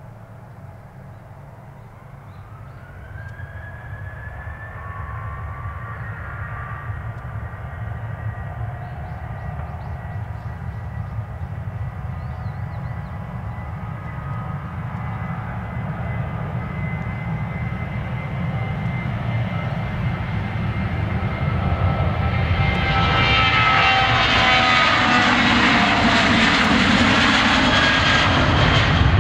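Boeing 737-800 jet airliner's CFM56-7B turbofan engines spooling up for takeoff: a whine rises in pitch about two seconds in and the sound grows steadily louder. Near the end the full roar of the jet passing close takes over, its whine sliding down in pitch.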